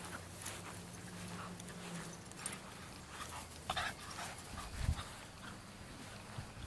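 Small dogs playing and running over a dry lawn: dog sounds with scattered short sharp noises, the loudest about three and a half seconds in, and a low thump near five seconds.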